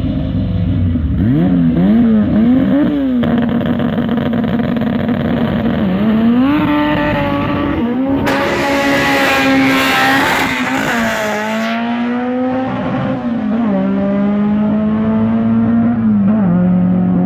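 Drag-race Honda Civic engine revving up and down at the start line, holding revs, then launching and accelerating hard down the strip, its pitch climbing and dropping sharply at each gear change. A loud hissing rush runs for about three seconds from the launch.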